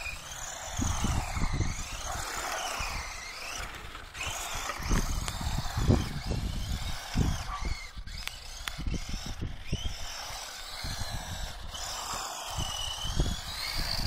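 Carisma 1:10 Audi quattro RC rally car driving: its electric motor and gears whine, the pitch swinging up and down again and again as the throttle is worked.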